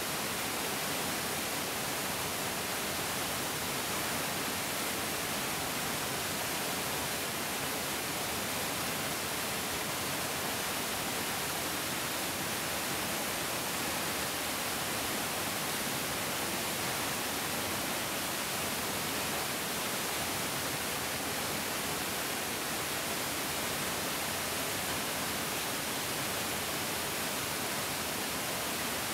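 A larger mountain stream's water rushing steadily over rocks, an even hiss with no single splashes standing out.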